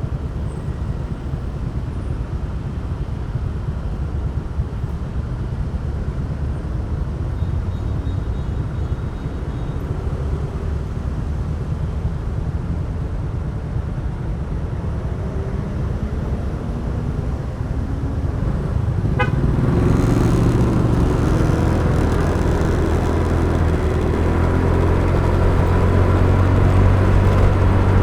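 Traffic noise heard from a moving motorbike: a steady engine and road rumble. About two-thirds of the way through, a short sharp sound comes, and then the engine noise gets louder with a steady hum.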